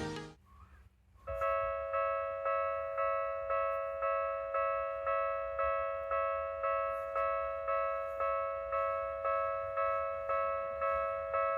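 Electronic level-crossing warning bell of the Tokyu type, starting about a second in and striking a steady ringing tone about two and a half times a second, the signal that a train is approaching. Music ends just as it begins.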